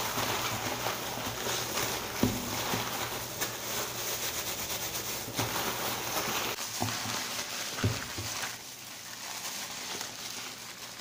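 Plastic courier mailer bag and thin disposable plastic gloves crinkling and rustling as the bag is handled, with a few soft taps.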